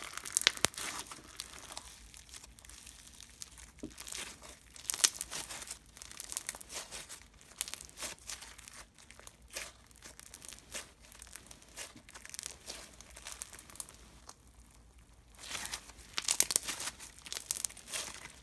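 Hands playing with slime: scattered crackling, crinkling and popping as it is pressed, stretched and squished, with louder bursts of crackle about five seconds in and again near the end.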